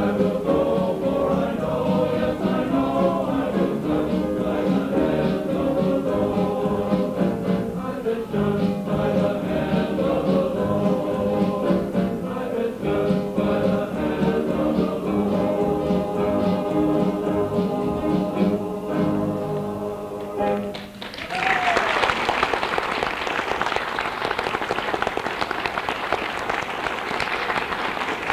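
Men's chorus singing a song to its close about twenty seconds in, then an audience applauding.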